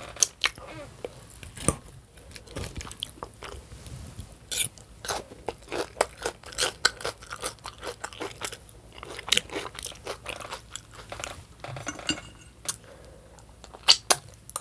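Close-miked chewing of crunchy food, with many irregular crisp crunches and wet mouth sounds as a person eats.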